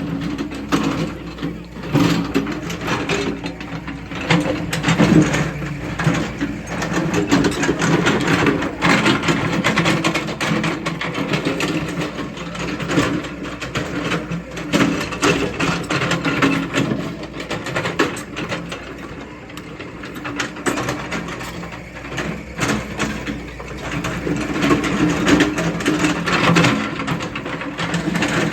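Sunward SWE90E excavator's diesel engine running with a steady hum, mixed with frequent metallic clanks and rattles from the machine at work.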